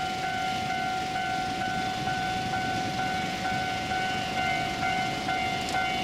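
Japanese level crossing's electronic warning bell ringing in a steady, repeating pattern, signalling that the crossing is closing for an approaching train.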